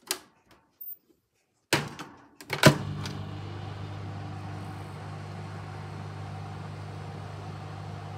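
A Moulinex microwave oven's door is shut with a few sharp clicks and knocks, the loudest about two and a half seconds in. Then the oven starts and runs with a steady low hum.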